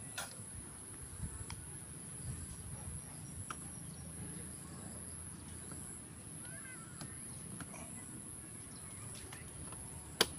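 Garden ambience: a steady high-pitched insect trill over a low rumble, with a few faint bird chirps in the middle and scattered faint clicks. A sharp click just before the end.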